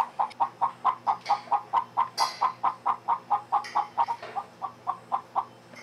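Domestic hen clucking in a fast, unbroken run of short clucks, about five a second, which stop shortly before the end.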